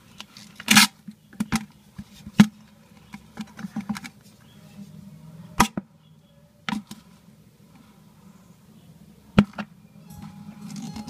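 Bamboo stick knocking and tapping against the bottom of a plastic basin: sharp, irregular knocks, several close together in the first few seconds and single ones later, over a faint low steady hum.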